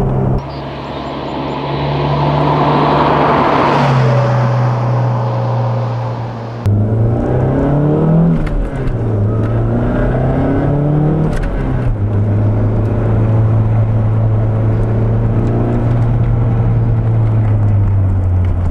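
Car engine running while driving, heard from inside the cabin. The engine note rises and falls several times between about eight and eleven seconds in, then holds steady. The sound jumps abruptly twice, early on and about a third of the way in.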